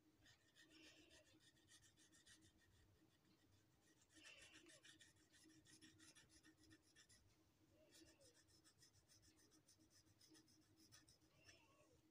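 Very faint felt-tip marker scratching on paper in clusters of short strokes, as a drawing's outline is inked.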